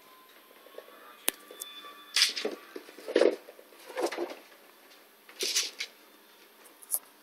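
Short noisy scuffles from a Yorkshire terrier moving about on a hardwood floor beside a wire cage. There are about five bursts, the loudest two to four seconds in, and a single sharp click about a second in.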